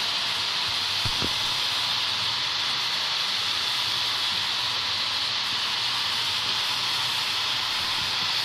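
Water pouring from a leak in a high ceiling, falling as a spray onto the floor below: a steady hiss.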